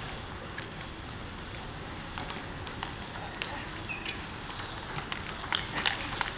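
Table tennis ball clicking off bats and table during practice. Scattered, sparse hits at first, then a quick run of hits in a rally from about five and a half seconds in.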